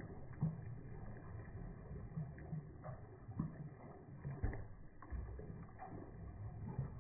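Slowed-down splashing and sloshing of a pug paddling in pool water, heard low and dull, with a few louder splashes.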